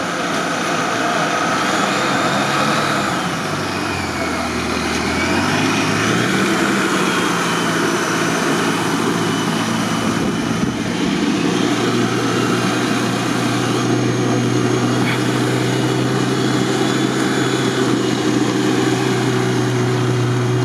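Suzuki Samurai engine revving as its tyres spin in deep snow, churning and throwing it. The revs rise and fall in the first few seconds, then are held steady through the second half.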